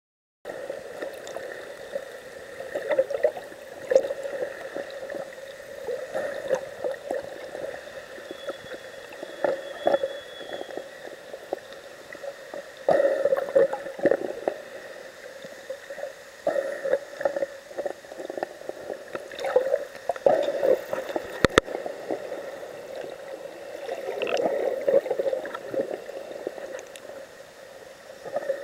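Water sloshing and gurgling heard through a camera held just under the sea surface, muffled, with irregular louder surges every second or two and a faint steady whine beneath.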